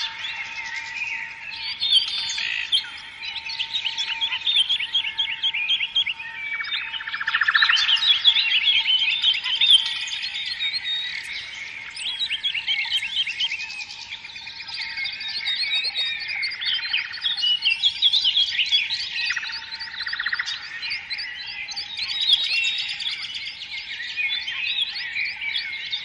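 A chorus of many small songbirds chirping and singing over one another, with short rapid trills mixed in and a faint steady tone underneath.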